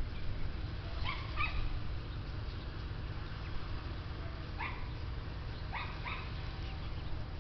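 Young chickens, about four weeks old, giving short high peeps a handful of times, over a steady low rumble.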